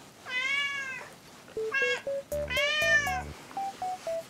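Ginger-and-white domestic cat meowing three times: a long meow, a short one about two seconds in, then another long one near the three-second mark.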